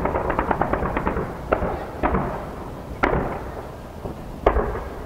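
A fireworks display. A rapid crackling volley of small reports, about ten a second, dies away in the first second or so. After it come four separate bangs spaced roughly a second apart, each trailing off.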